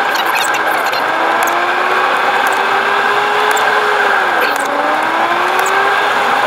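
Car driving along a narrow road, heard from inside the cabin: a steady drone of engine and tyres with a whine that dips in pitch about four and a half seconds in, then climbs again, and occasional sharp rattling ticks.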